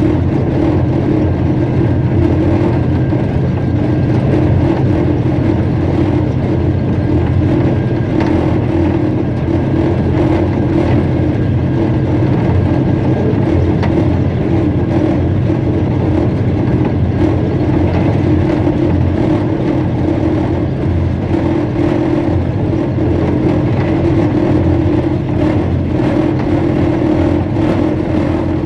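Inside the cab of a ZCUP-30 diesel-electric locomotive running along the line: the diesel engine's steady drone mixed with the rumble of wheels on track, unbroken throughout.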